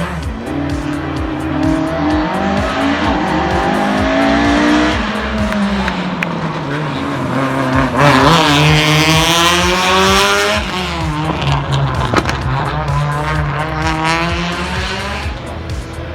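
Historic rally car engines revving hard as cars pass at speed, the pitch climbing and falling with gear changes. The loudest pass comes about halfway through, revving up sharply and then dropping away.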